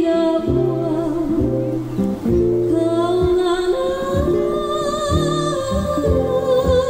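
Live Hawaiian music through a PA: a woman sings long notes with vibrato, stepping up to a higher held note about halfway through, over strummed ukuleles and acoustic guitar.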